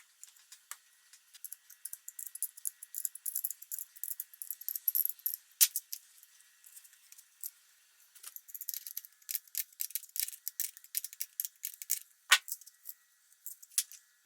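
Light metallic clicking, clinking and rattling of hand tools and small metal parts being handled during work on a moped, in two busy spells, with a sharper knock about five and a half seconds in and another about twelve seconds in.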